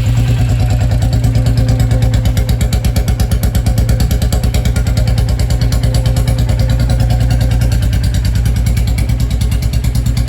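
Royal Enfield Bullet 350's single-cylinder 349 cc J-series engine idling steadily and loudly through a free-flow bend pipe and a Mini Punjab silencer, in an even run of exhaust thumps. The silencer carries a rubber insert, which lowers the pitch and gives a heavier thump.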